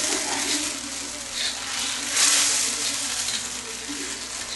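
Coconut milk sizzling in a steel wok while a spoon stirs and scrapes curry paste through it, with a louder swell of hiss about two seconds in.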